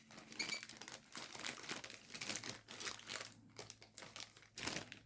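Plastic packaging crinkling in irregular rustles as the sealed bags of model-kit parts are handled.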